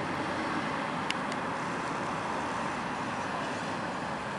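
Steady street traffic noise, a continuous even rumble and hiss, with two faint clicks about a second in.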